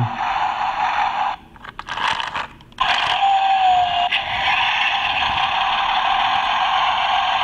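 Toy tow truck's built-in sound effect of an engine revving, played through its small speaker, tinny with no low end. It stops about a second and a half in, a few clicks follow as its button is pressed, and about three seconds in another similar engine sound effect starts playing.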